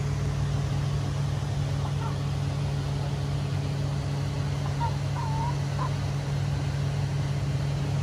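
A steady low machine hum, with one brief soft chicken call about five seconds in.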